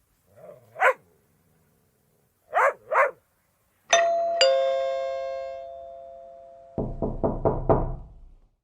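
A few short dog barks, then a two-tone ding-dong doorbell chiming once, high note then lower note, ringing out for a few seconds. Near the end, rapid knocking on a door, about five knocks.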